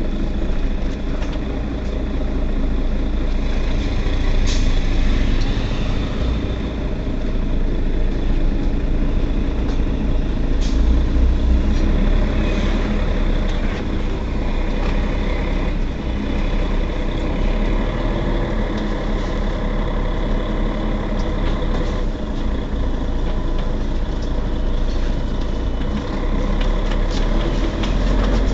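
Mercedes-Benz Citaro Facelift city bus engine idling with a steady low rumble while the bus stands still, with a couple of brief sharp sounds about 4 and 10 seconds in.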